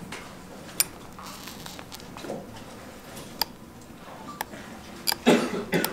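Dental pick tip scratching and clicking against a steel scale while scribing a load line on an aluminium beam: a few sharp clicks spread out, then a louder run of scraping near the end.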